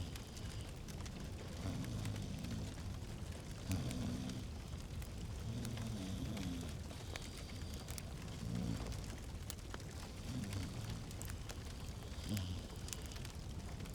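Log fire in a fireplace crackling, with frequent small pops and snaps over a low, wavering rumble.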